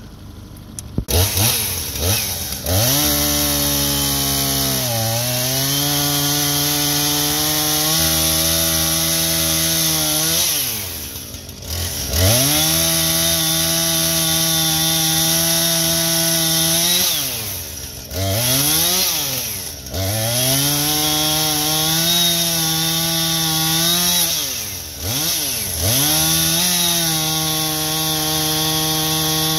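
Gas chainsaw cutting through a fallen tree trunk, running at high speed in the cut. Its engine pitch drops and climbs again several times as the throttle eases off and opens back up.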